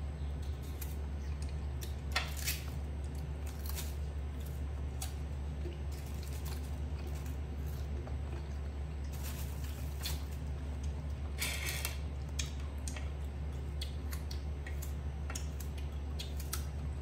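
A young macaque biting and chewing crisp fruit slices, making scattered short crunching clicks, the strongest about two seconds in and again around twelve seconds. A steady low hum runs underneath.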